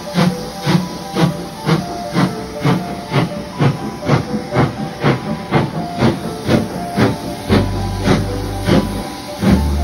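Steam locomotive working past, its exhaust chuffing in a steady beat of about two a second over a hiss of steam. A low steady hum joins near the end.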